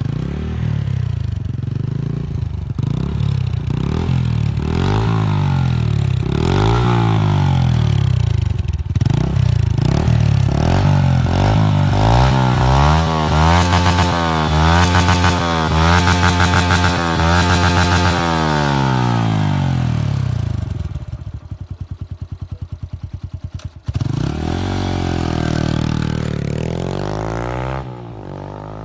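Yamaha YBR 125's single-cylinder four-stroke engine through an Akrapovič aftermarket silencer with its dB-killer fitted, blipped repeatedly with quick rises and falls in revs, then held against the rev limiter for several seconds with a rapid stuttering cut-out before dropping back. Near the end the bike pulls away, revs rising, and fades as it rides off.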